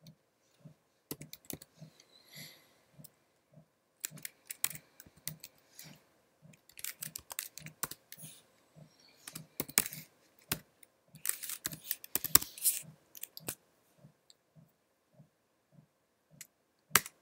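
Typing on a computer keyboard in irregular bursts of key clicks as a terminal command is entered, ending with one sharper key press near the end that runs the command.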